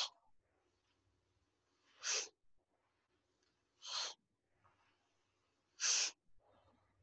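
Sanchin kata breathing by a karate practitioner: a short, forceful exhale about every two seconds, each timed to a punch going out, with faint breaths in between as the arms draw back in.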